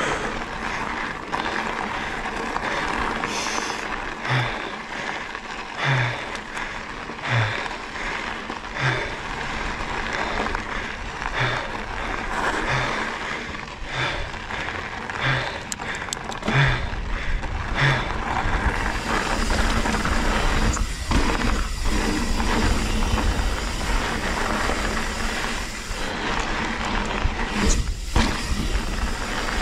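Mountain bike riding along a rough dirt trail: tyre noise with the bike rattling and clattering over bumps, and a heavy low rumble of wind on the microphone setting in past the midpoint.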